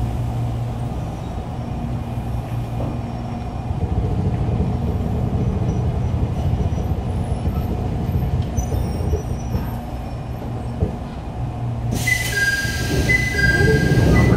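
Jōmō Electric Railway car 723, a former Keio electric train built in 1964, standing at the platform with a steady low electric hum. About twelve seconds in the sound changes to the inside of a car, with a hiss and a high two-note electronic tone alternating.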